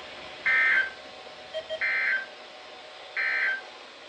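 Emergency Alert System end-of-message signal: three short bursts of SAME digital data tones, about a second and a half apart, over a steady radio hiss. The bursts mark the end of the alert message.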